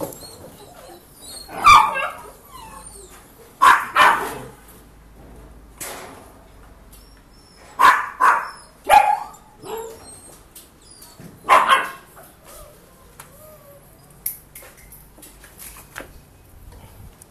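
Dog barking in short bursts: once about two seconds in, twice near four seconds, three times around eight to nine seconds, and once more near twelve seconds.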